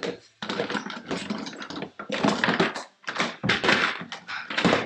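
Objects being picked up and moved around by hand: a dense run of irregular clatters, clicks and knocks.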